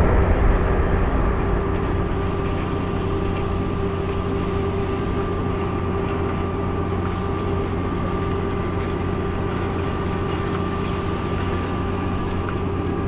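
Boeing C-17 Globemaster III's four turbofan engines running at low power as the jet rolls along the runway. A louder rush fades over the first two seconds into a steady hum with a held whine.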